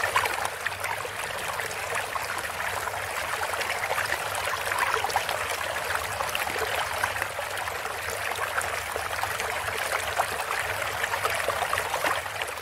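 Steady trickling water sound effect, a dense haze of fine crackles and splashes with a faint low hum beneath.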